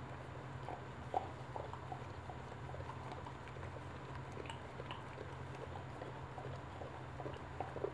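Boxer dam licking and mouthing her newborn puppy: irregular wet licks and small mouth clicks, one louder click about a second in, over a steady low hum.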